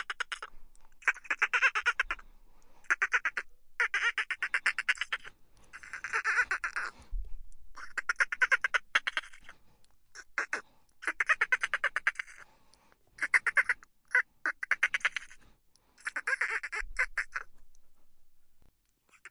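Dolphins chittering in bursts of rapid clicking pulses: about a dozen bursts of up to a second each, separated by short gaps.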